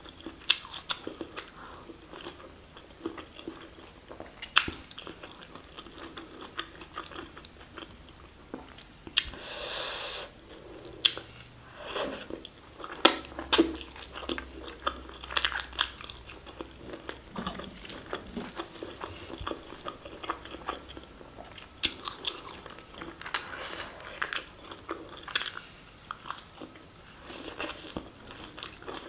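Close-miked eating by hand: a mouthful of mutton curry, mushrooms and rice being chewed, with irregular sharp mouth clicks and smacks and occasional crunches.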